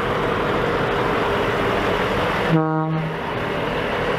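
Steady truck engine running with a hum, broken by one short horn honk about two and a half seconds in.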